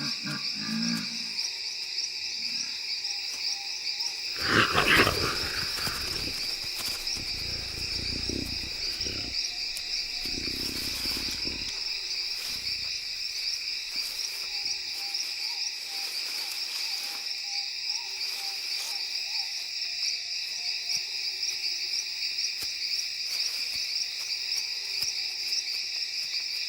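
Steady high-pitched chorus of rainforest crickets and other insects throughout. About five seconds in comes a loud, short jaguar call, followed by lower, rougher calls until about twelve seconds in.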